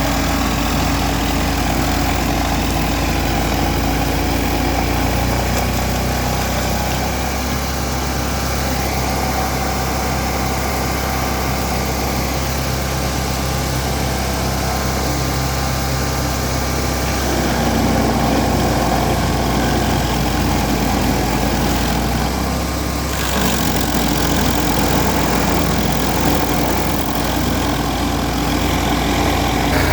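Vermeer SC382 stump grinder's 37 hp engine running steadily while grinding a stump, with a hiss over it. Its note shifts to a new pitch a few times.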